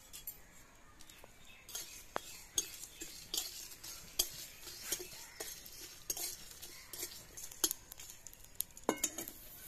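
Metal spatula scraping and clinking against a metal kadai, stirring coriander and cumin seeds and dried red chillies as they dry-roast. Irregular clinks and scrapes, a few each second.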